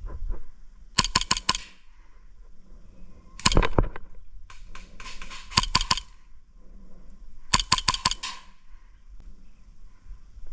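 Airsoft guns firing in four short bursts of rapid snapping shots, a few seconds apart.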